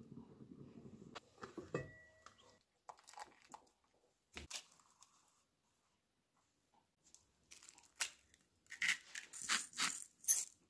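Kitchen food-preparation sounds: a low simmering hiss at first, then scattered knocks and a single thud. Near the end comes a run of crunchy, crackling squelches as cooked potatoes are pressed and worked in a glass bowl.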